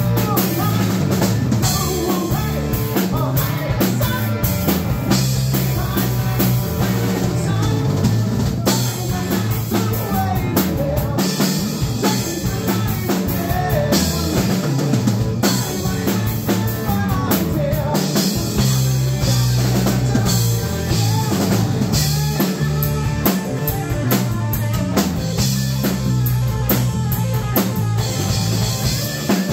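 Live rock band of electric guitar, electric bass and drum kit playing loud and steady, with a prominent bass line and the drums hitting throughout.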